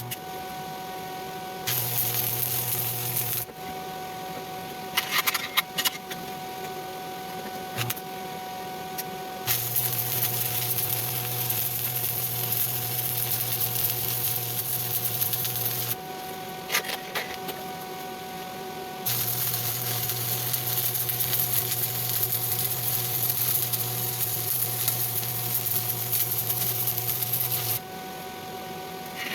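Stick (SMAW) welding arc crackling and hissing in three runs, the longest about eight seconds, each with a steady low hum under it. Between the runs come a few sharp clicks and taps.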